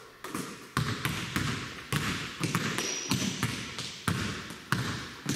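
Basketball bouncing on a hardwood gym floor: a dribble of sharp bounces, roughly two a second, each echoing in the large gym.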